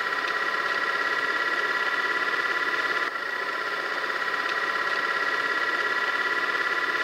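Film projector running: a steady, rapid mechanical flutter over a constant high-pitched hum.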